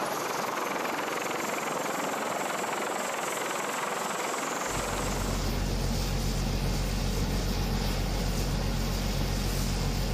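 Steady aircraft engine noise on a carrier flight deck. About halfway through, a deep, even hum joins it and stays.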